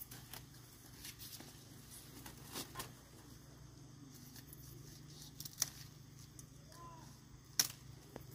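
Irregular sharp clicks and snaps over a faint steady low hum, the two loudest about two seconds apart in the second half.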